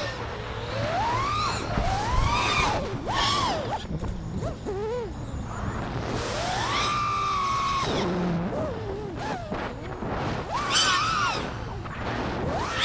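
FPV freestyle quadcopter's brushless motors whining, the pitch sweeping up and down again and again as the throttle is punched and eased, with one held high note for about a second and a half just past the middle. Wind rumble on the onboard microphone underneath.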